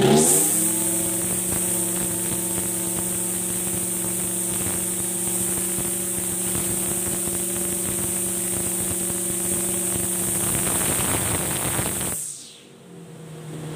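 Backpack brush cutter's 42cc engine running steadily at speed, with an even, humming note over a high hiss. It cuts in abruptly and drops away sharply about twelve seconds in.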